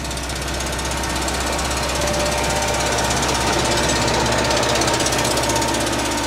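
Heavy road-construction machinery, diesel engine running under load with a fast, steady pulsing and a constant low hum.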